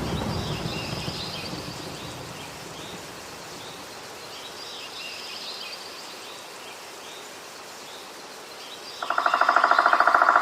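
A rumble of thunder dies away, leaving birds chirping in a high phrase that repeats about every four seconds. About nine seconds in, a loud, rapid buzzing pulse sets in.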